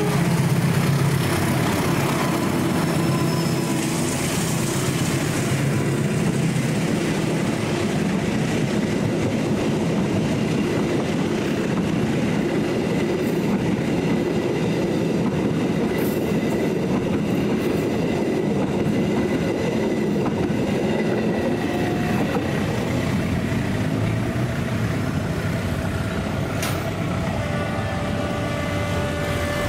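A diesel-electric locomotive passes close by hauling a rake of new stainless-steel passenger coaches: the engine is loudest as it goes by near the start, then comes the steady rush of the coaches' wheels on the rails. The noise eases slightly near the end.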